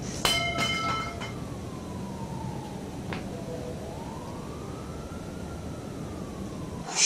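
Trailer sound design: a siren wailing slowly down and back up over a low steady drone. A few ringing clinks sound in the first second, and a whoosh comes at the very end.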